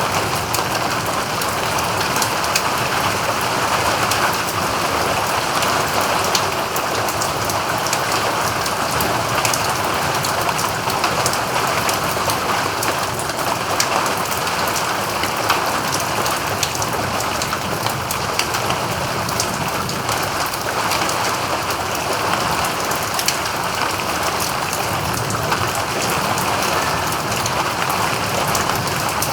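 Steady rain falling, with many separate drops ticking sharply through an even hiss that holds at a constant strength.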